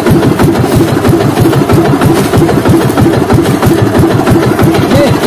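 A small fishing boat's engine running steadily, with an even, fast beat.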